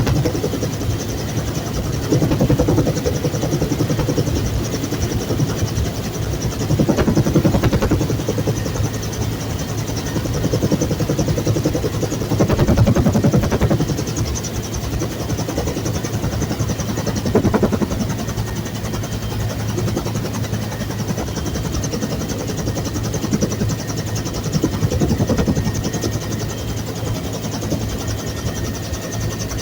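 Bell UH-1 Huey helicopter in flight: steady turbine and rotor noise, swelling louder every few seconds.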